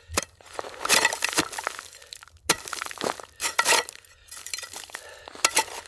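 Ice being chipped and broken: irregular sharp cracks and glassy clinks, about a dozen in all.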